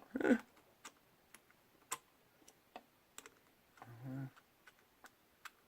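Faint, irregular light clicks, roughly two a second, of a small screwdriver and tiny screws as a drone camera cover is screwed back on.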